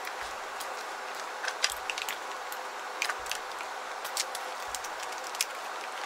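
Small belongings being packed into a small leather shoulder bag: scattered light clicks and taps as the items are handled and dropped in, over a steady hiss of background noise.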